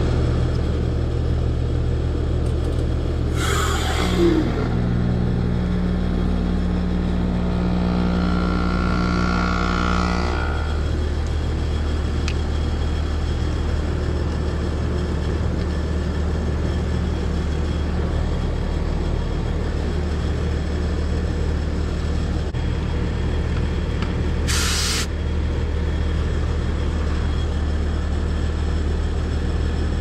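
Carrier heat pump outdoor unit running in heat mode: a steady compressor and fan hum. A short hiss comes about three seconds in and another near twenty-five seconds.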